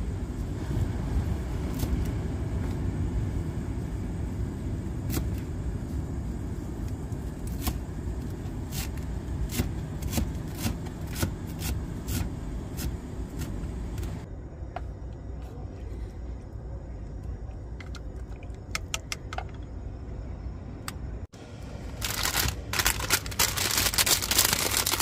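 A chef's knife chopping green onions and cilantro on a plastic cutting board: sharp single chops, quicker in the middle, over a steady low rumble. Near the end, a pot of water at a rolling boil on a portable gas stove, bubbling with a dense crackling hiss.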